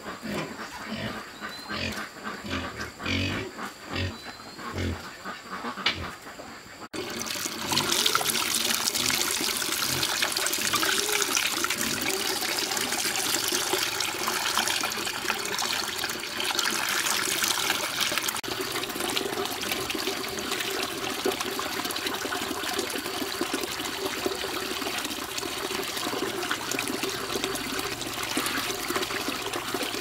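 Tap water pouring steadily into a plastic basin full of fish, with splashing as hands turn and rinse the fish in it. It starts suddenly about seven seconds in; before that, a few scattered knocks and thumps.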